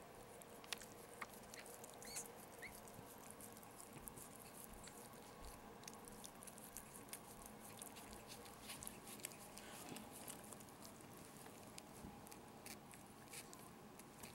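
Maltese mother dog licking and mouthing her newborn puppy: faint, frequent wet clicks and smacks.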